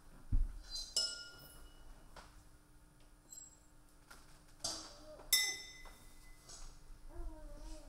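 Electroacoustic soundscape of sparse glassy, metallic clinks, each ringing on for about a second, three strikes a few seconds apart with the loudest about five seconds in. A low thump sounds just after the start, and a short wavering tone comes near the end.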